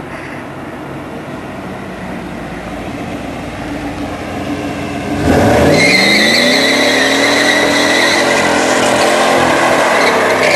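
Chevrolet Camaro Z28's V8 engine approaching, then about five seconds in revving hard as the rear tires break loose, with a steady high tire squeal as the car spins a donut.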